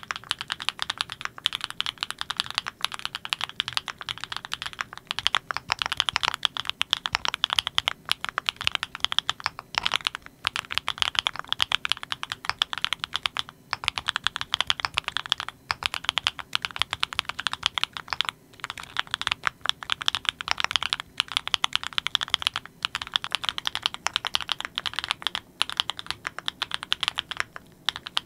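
Typing test on a Klein Mont Cervin custom mechanical keyboard fitted with Kinetics Candy Vanilla switches: a fast, continuous run of keystrokes, broken by brief pauses every few seconds.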